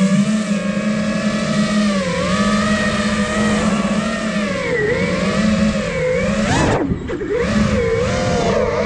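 The motors and propellers of a 5-inch FPV freestyle quadcopter, an iFlight Nazgul Evoque 5, whining in flight. The pitch rises and falls with the throttle. About seven seconds in, the pitch sweeps up sharply, then the high part of the sound cuts out for a moment before it comes back.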